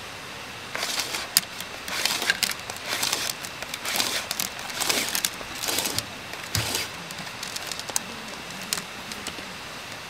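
Packaging rustling and crinkling as items are handled, in a busy run of bursts and clicks lasting about six seconds, then a few light clicks.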